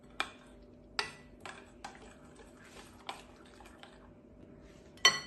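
Metal spoon stirring a thick creamy mixture in a glass bowl, clinking against the glass at irregular intervals, with the loudest clink near the end. A faint steady hum sits underneath.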